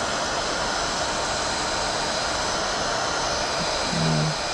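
Electric heat gun blowing steadily on its maximum setting, a constant rushing hiss.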